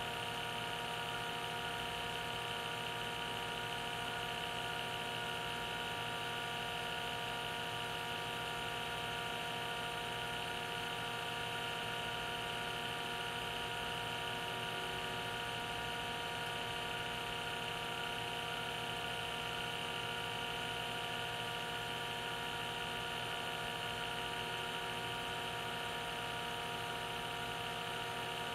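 A small electric motor running with a steady, unchanging whir and hum.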